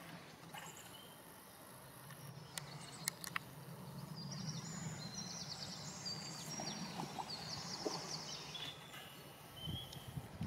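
Outdoor pond-side ambience with small birds singing in short, repeated, falling trills, and a few sharp clicks and light splashes as a trout thrashes in a landing net.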